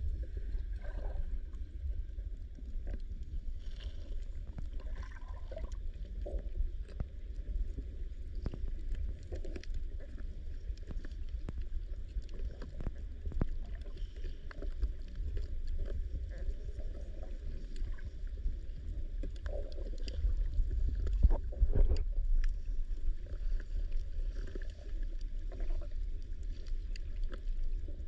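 Underwater reef ambience: a low, steady rumble of moving water with many scattered clicks and crackles, swelling louder about three quarters of the way through.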